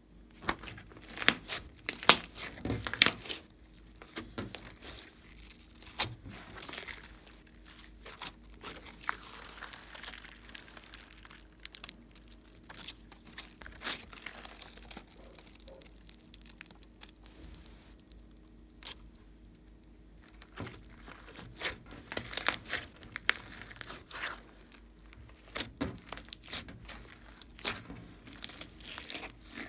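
Glossy slime being stretched, squeezed and kneaded by hand, giving irregular sticky crackles and clicks.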